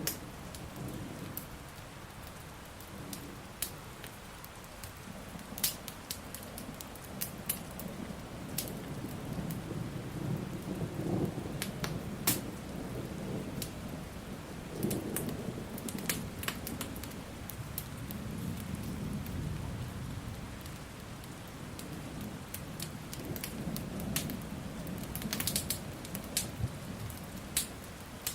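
Steady rain with thunder rumbling in slow, low swells, and sharp crackles and pops from a burning wood fire scattered throughout.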